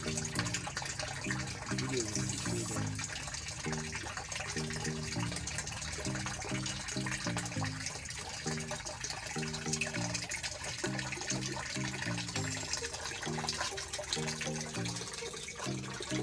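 Water running and splashing as a steady crackling hiss, with background music playing a low repeating tune underneath.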